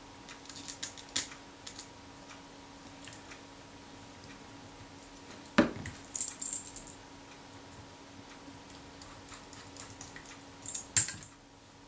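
Small metallic clicks, clinks and taps of tiny screws and tools being handled while the strap lug bracket is screwed to a Kodak Retina IIIc camera body, with a sharper knock about five and a half seconds in and a quick cluster of clicks near the end.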